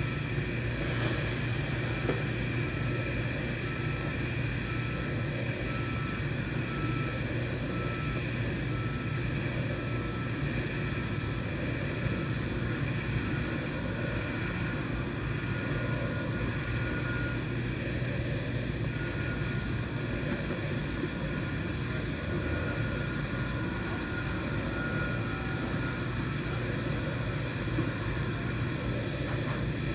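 Steady hum and hiss of a TIG (GTAW) welding arc on stainless steel pipe, with ER308L filler, running without a break.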